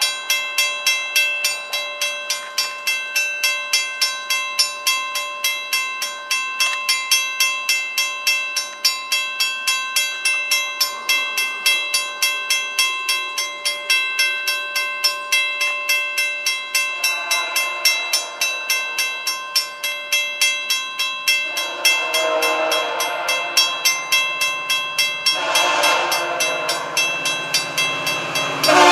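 Railway crossing-signal bell ringing steadily, about two strikes a second, as the crossing warning is active. From about 17 seconds in, an approaching train's horn sounds in long blasts, getting louder.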